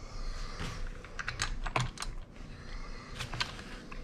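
Irregular light clicks and taps, a few a second, from small parts and the plastic housing of a Homelite Super 2 chainsaw being handled during hand reassembly.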